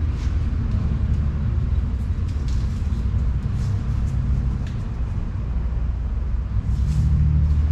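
Light, scattered clicks and knocks of a cooling fan and shroud assembly being worked up into a tight engine bay, over a steady low rumble.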